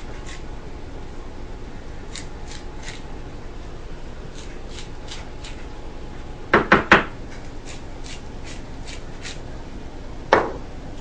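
Kitchen handling sounds: light ticks in short runs of three or four, about three a second, with a quick cluster of three sharp knocks a little past halfway and one more knock near the end, over a steady low hum.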